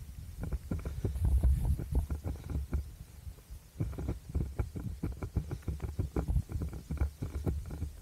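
A runner's footsteps heard through the carried camera as quick, regular thuds, over a low wind rumble on the microphone.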